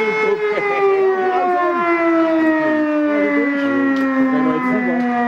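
Fire-alarm siren sounding, its single tone and overtones sliding slowly down in pitch as it winds down.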